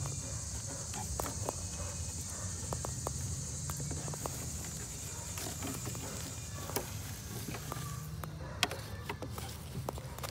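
Crickets trilling steadily in the background, stopping about eight seconds in. Over them come scattered small clicks and rustles of a hand digging through potting soil and moving sticks in a glass terrarium.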